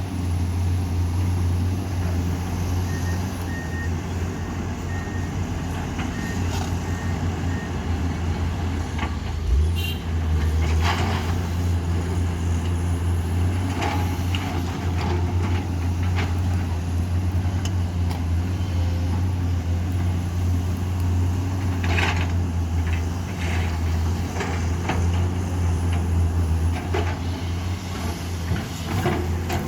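Heavy diesel earthmoving machinery running steadily under load, with a short series of high reversing-alarm beeps a few seconds in. Several sharp knocks and clatters sound over the engine, the loudest about ten seconds in.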